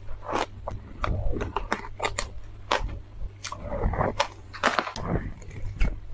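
Shaved ice being bitten and chewed close to the microphone: irregular crisp crunches, a few a second, over a steady low hum.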